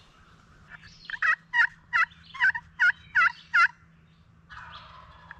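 A series of about seven turkey yelps, evenly spaced at about two to three a second, then stopping.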